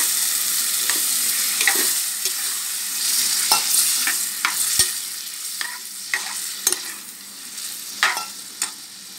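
Metal spoon stirring and scraping a curry in an aluminium pressure cooker, with irregular clicks of the spoon against the pot. Over this sits the hiss of the masala frying in oil, which dies down in the second half as water is poured in.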